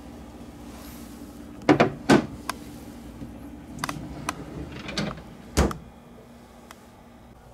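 Refrigerator freezer drawer: a ceramic plate is set down in the plastic drawer bin with a few sharp clatters and knocks, then the drawer is slid shut with a low thud about five and a half seconds in.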